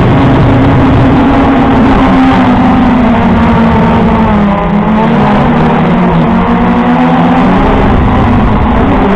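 A small drone's electric motors and propellers buzzing loudly up close, heard from the drone's own onboard camera. The pitch wavers, sags about halfway through, then climbs again.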